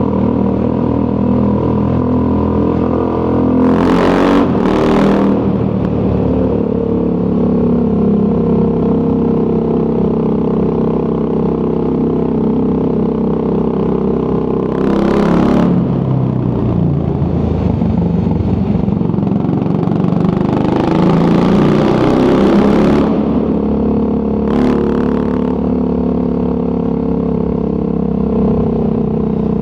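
Triumph Scrambler 400 X's single-cylinder engine running through an aftermarket Zard exhaust at riding revs, its note shifting in pitch about fifteen and twenty seconds in. Short rushes of noise come through about four, fifteen, twenty-one and twenty-four seconds in.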